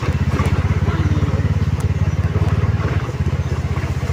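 Motorcycle engine running steadily under way, heard from the rider's seat, its rapid even firing pulses the loudest sound.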